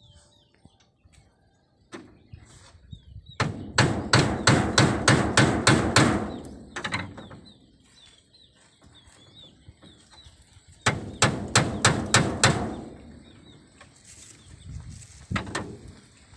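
Hammer driving nails into wooden floor slats: a run of quick strikes, about four a second, a few seconds in, and a second shorter run a little past halfway, with single knocks either side. Small birds chirp faintly in the gaps.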